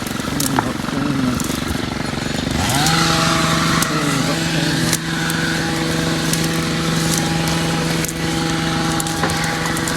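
Small petrol engine on outdoor power equipment, running and then revved up to full throttle about two and a half seconds in, then held at a steady high speed.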